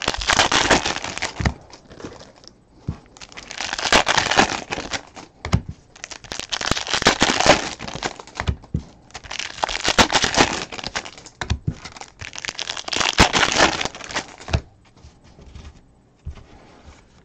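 Trading card pack wrappers being torn open and crinkled in about five bursts, then quieter handling of the cards with a few light taps near the end.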